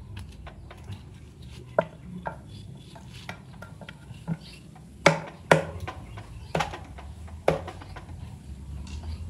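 Metal motorcycle engine parts clicking and knocking as a side cover is fitted onto the crankcase by hand over the starter gears: a scatter of light clicks, with a few louder knocks from about five to seven and a half seconds in.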